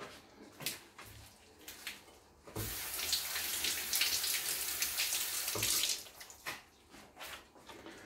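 Kitchen tap turned on and running for about three seconds while something is rinsed under it, then shut off, with a few light knocks before and after.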